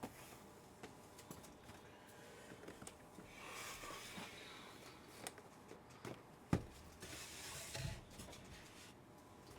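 Quiet handling of cardboard boxes: a few light knocks, one sharper knock about two-thirds of the way through, and two short stretches of rustling.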